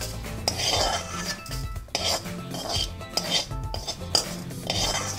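A metal spoon scraping and clinking against a metal kadai in several separate strokes as fried urad dal, dried red chillies and curry leaves are scooped out of the pan.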